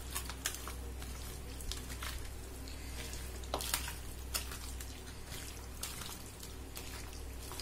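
Soft, irregular wet squelches and clicks of a bare hand squeezing and turning masala-coated raw chicken pieces in a steel bowl, working the marinade into the meat, over a steady low hum.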